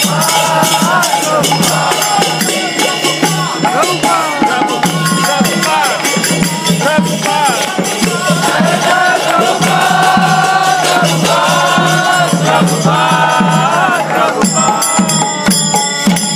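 Kirtan: a group chanting in unison to a steady beat on a mridanga drum and jingling hand cymbals.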